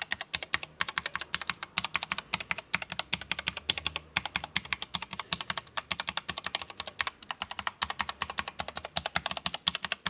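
Royal Kludge RK84 75% mechanical keyboard with red linear switches, typed on fast across the standard letter keys: a dense, even stream of key clacks, many keystrokes a second, stopping at the end.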